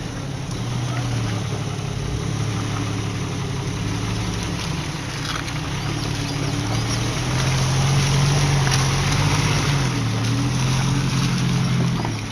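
Off-road 4x4's engine running under load, its revs rising and falling, highest and loudest a little past the middle before easing off.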